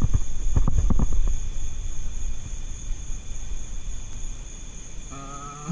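A few sharp clicks and handling rumble from a steel tape measure held against the siding, the clicks bunched in the first second or so, over a steady thin high-pitched whine.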